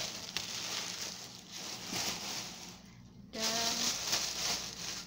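A shopping bag of vegetables rustling and crinkling as it is rummaged through and an item is pulled out, in two long spells with a short pause about three seconds in.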